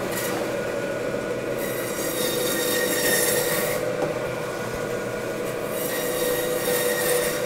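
Meat-cutting bandsaw running with a steady whine while its blade saws the vertebrae off a beef rib section. A harsher hiss of cutting swells and fades in three stretches as the rib section is pushed through the blade.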